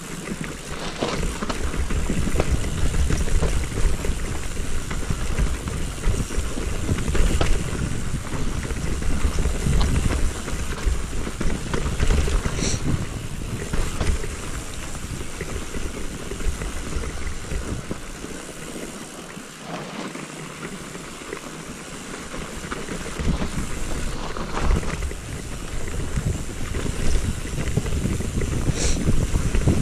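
Wind on an action-camera microphone and the rumble of a mountain bike riding downhill on a snowy trail, dipping quieter for a few seconds in the middle.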